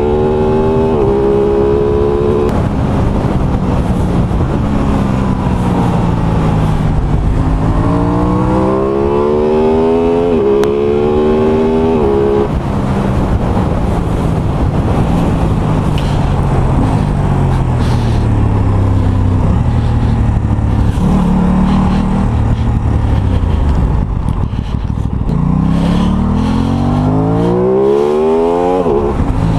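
Aprilia Tuono 660's parallel-twin engine under way, accelerating with its pitch climbing and cutting sharply at quick upshifts, as with a quickshifter. It then slows with the engine note falling, and accelerates hard again near the end, over a steady rush of wind noise.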